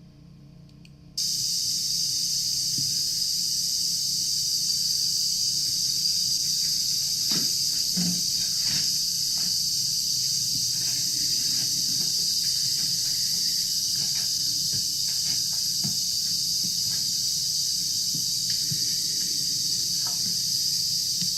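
A loud, steady high hiss that starts abruptly about a second in and holds evenly, with scattered faint clicks and knocks under it.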